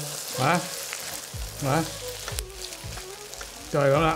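Egg foo young omelette sizzling in oil in a non-stick wok over low heat, while a metal slotted spatula scrapes under it and turns it for the flip.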